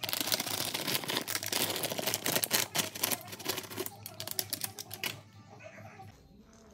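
Dense crisp crackling and clicking as a crumb-topped cherry pie is cut and a slice is lifted out of its pan with a server, over soft background music; the crackling stops about five seconds in.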